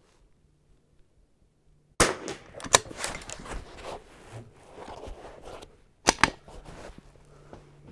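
Vudoo .22 LR bolt-action rifle fired twice, about four seconds apart: a sharp crack about two seconds in and another around six seconds. Between them come smaller metallic clacks as the bolt is cycled by hand.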